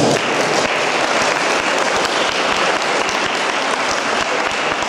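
Audience applauding, with steady, dense clapping.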